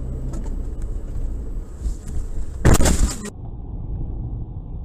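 Car driving, heard from inside the cabin: steady low road and engine noise, with a sudden loud burst of noise lasting about half a second just before the middle. After it the car sound goes on quieter and duller.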